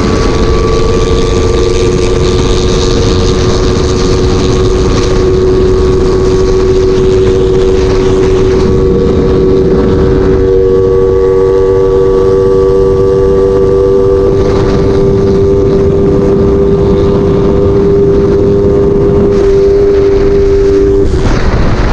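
Suzuki Raider Fi's single-cylinder four-stroke engine, freshly refreshed with a light port job and cam upgrade, running hard at a steady, near-constant pitch as the bike is ridden, with wind rushing over the microphone. The engine note drops away about a second before the end, leaving mostly wind.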